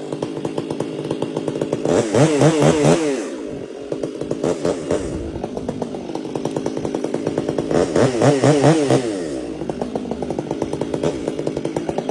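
Chainsaw engine running steadily, with two louder stretches, about two seconds in and about eight seconds in, where its pitch wavers quickly up and down.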